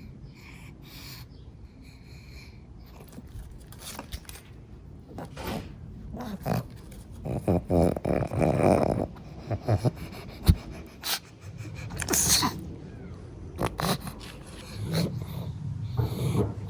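Pug snorting and snuffling through its short nose in irregular bursts while resting, with a longer, louder one about eight seconds in and a sharp one about twelve seconds in.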